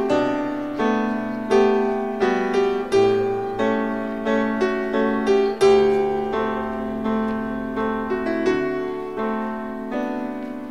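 Solo piano background music: a gentle melody of single notes struck one after another and left to ring over held chords.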